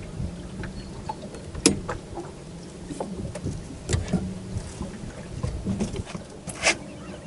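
Scattered knocks and clicks of fishing rods and reels being handled in their holders on an aluminum boat, the sharpest about a second and a half in, near four seconds and near the end, over a low steady rumble.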